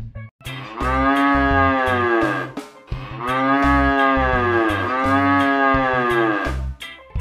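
Cow mooing: three long moos of about two seconds each, the last two running almost together. A soft music backing with a steady beat runs underneath.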